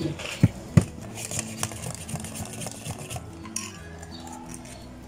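A metal spoon clinking against a small glass cup while a drink is stirred: three sharp clinks in the first second, then lighter clinks and taps until about three and a half seconds in.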